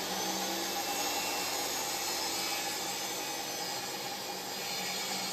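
Table saw running steadily as a wooden board is fed slowly through the blade.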